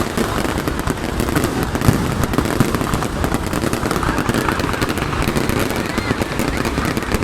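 A fireworks display going off: a dense, unbroken crackle of many small bangs in rapid succession, with a few louder single pops standing out.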